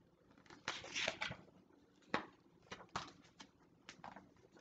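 Paper rustling as the large pages of a picture book are turned: a series of short swishes and crisp flaps.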